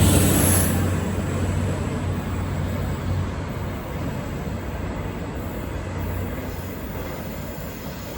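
V/Line VLocity diesel multiple unit running away from the listener: engine hum and rail rumble, loudest at the start and fading steadily.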